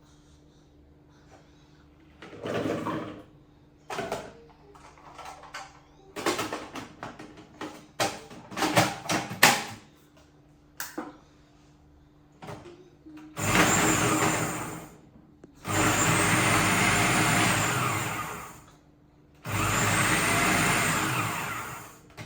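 Plastic clicks and knocks as the food processor's bowl, blade and lid are fitted, then the electric food processor run in three pulses of a few seconds each, chopping okra. Each pulse starts with a rising whine.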